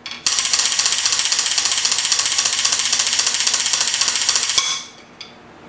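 Drum roll played with wooden drumsticks on the aluminium plate of a bait mold: a fast, even run of metallic taps that stops sharply about four and a half seconds in.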